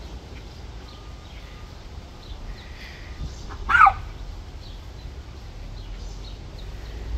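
A small curly-coated dog gives one short, sharp bark about halfway through, over a steady outdoor background with faint bird chirps.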